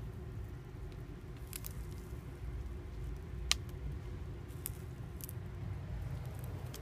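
Red-footed tortoises biting into kale leaves: a handful of short, crisp snaps as the leaves tear, the loudest about halfway through, over a low steady rumble.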